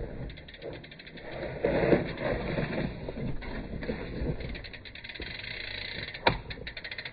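Mountain bike descending a rocky, rooty trail: tyres rolling and bumping over rock and roots, with fast, even ticking from the rear freehub while coasting. One sharp knock about six seconds in.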